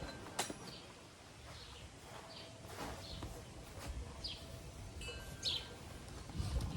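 Small birds chirping in short, high, falling calls scattered throughout. Under them is a low rumble of wind on the microphone, and there are a few sharp clicks.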